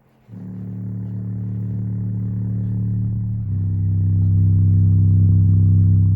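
Microlab subwoofer playing a sustained deep bass note with a buzzy stack of overtones, starting about a quarter second in and swelling, then changing to a louder bass note about three and a half seconds in.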